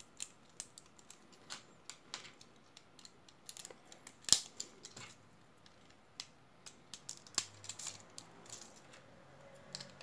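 Plastic LEGO bricks clicking and rattling as small pieces are handled and pressed together by hand: irregular small clicks, the sharpest about four seconds in.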